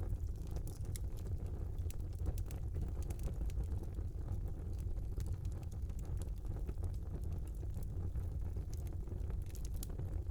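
Wood fire burning in a small fireplace: a steady low rumble of flames with frequent small crackles and pops scattered throughout.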